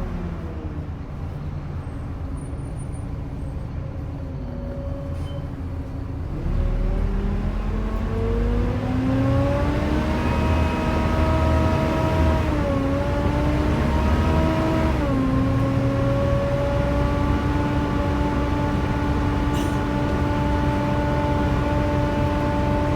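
Volvo B7TL double-decker bus's engine heard from the back seat, with a loud whining 'hoover' tone: it slows and idles, then about six seconds in pulls away, the whine rising in pitch with two brief dips at gear changes, then holds a steady speed.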